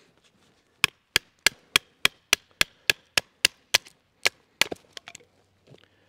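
A wooden baton striking the spine of a Beavercraft BSH3 bushcraft knife about a dozen times in quick, even succession, about three knocks a second, batoning the blade down through a short upright log to split it.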